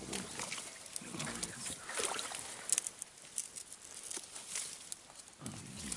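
Frogs croaking: short, low, rapidly repeated grunting calls about a second in and again near the end, among scattered small clicks and water patter.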